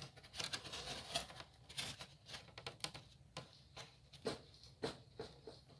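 Faint, irregular clicks and taps of hands working a hot glue gun and foam board while a maze wall is glued in place.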